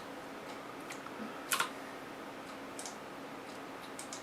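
A few scattered clicks of computer keys or buttons, the loudest a quick double click about a second and a half in, with fainter single clicks around it, over a steady faint hum.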